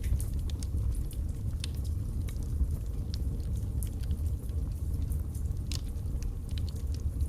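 Wood fire burning in a fireplace: a steady low rumble of the flames with irregular sharp crackles and pops from the logs.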